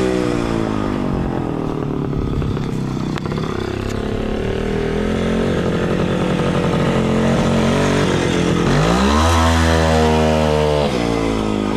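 WSK 125 motorcycle's two-stroke single-cylinder engine running as the bike rides along, then revved hard about nine seconds in as it accelerates away close by, the pitch holding high for about two seconds before dropping back.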